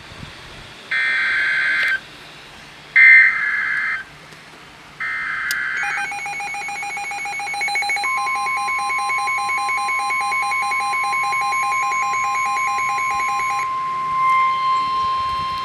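NOAA Weather Radio tornado warning alert: three one-second bursts of screechy SAME digital header data, then a weather radio receiver's rapid alarm beeping. The steady 1050 Hz warning alert tone joins about eight seconds in and is still sounding after the beeping stops.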